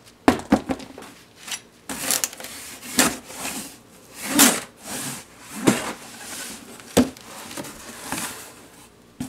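Corrugated cardboard shipping box being torn open along its packing-tape seam: a string of short rips, scrapes and rustles as the flaps are pulled apart.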